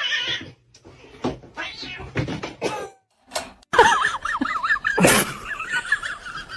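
Cat yowling with a rapidly wavering pitch from about four seconds in, after a few scattered knocks and taps; a sharp thump cuts in about a second later.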